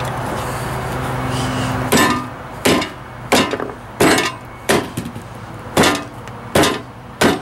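A hammer pounding a blender's electric motor through a thick towel, with about eight blows at a steady pace of roughly one every 0.7 s, starting about two seconds in. A steady low hum fills the first two seconds.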